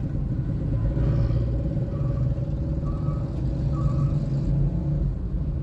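Vehicle driving on a city road: steady low engine and road rumble with a steady hum over it. Three or four short, faint beeps come about a second apart in the middle.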